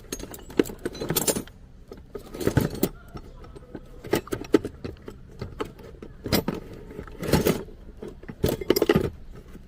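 Metal clinking and knocking in irregular bursts, about six clusters: hand tools and metal parts being handled during work on a car.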